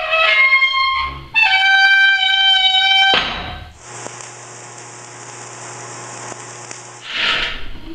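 A short trumpet-like sting of two held notes, the second a little higher and longer. It is followed, about four seconds in, by a steady hiss with a low hum underneath as a wire-feed (MIG) welder runs a bead, stopping abruptly about seven seconds in.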